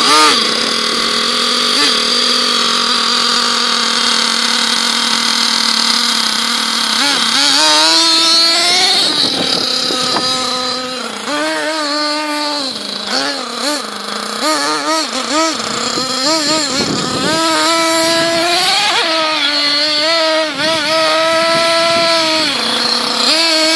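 Small .28 nitro engine of a Thunder Tiger MTA4 S28 RC monster truck fitted with twin exhausts, running at a steady high idle for about seven seconds, then revved up and down repeatedly in quick throttle swings.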